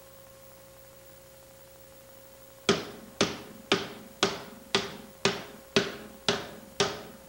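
Steady hammer blows, about two a second, driving the iron top hoop down onto a wooden barrel. Each blow rings briefly. The blows start about two and a half seconds in, after a faint steady hum.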